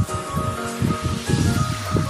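Background music with a pulsing bass beat and held melody notes.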